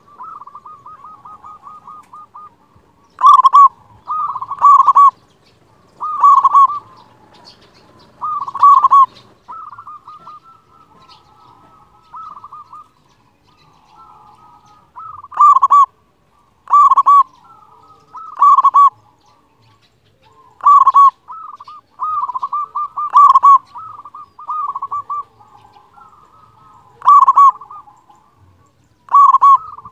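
Zebra dove (perkutut) singing: about a dozen loud cooing phrases, with quieter rapid trilling notes running between them.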